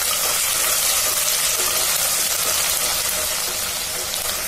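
Onions and ginger-garlic paste sizzling steadily as they fry in hot oil, stirred with a spatula.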